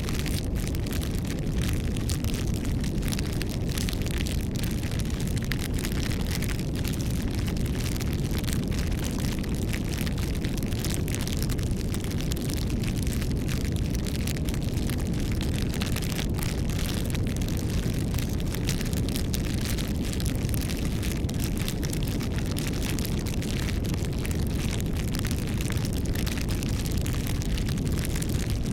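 Campfire burning: a steady low rumble of flames with many quick crackles and pops from the burning wood throughout.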